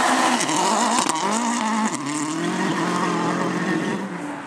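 Peugeot 307 WRC rally car's turbocharged four-cylinder engine revving hard as it passes close by, its pitch swinging up and down through gear changes. Then the note holds steadier and fades as the car draws away near the end.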